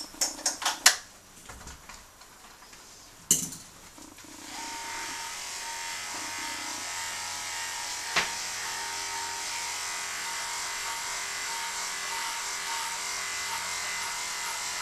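A few sharp clicks, then electric dog-grooming clippers switched on about four seconds in, running with a steady, even hum.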